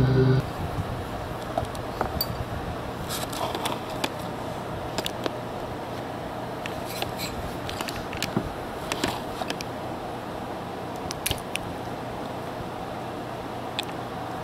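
Streamed show audio cuts off abruptly about half a second in. Scattered light clicks and rustles follow, made by hands handling boiled peanuts close to the microphone, over a faint steady hum.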